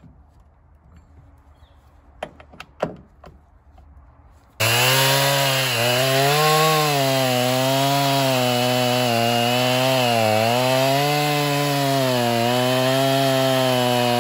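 A few light snaps, then about four and a half seconds in a chainsaw comes in suddenly and runs loud, its pitch wavering up and down as it cuts firewood.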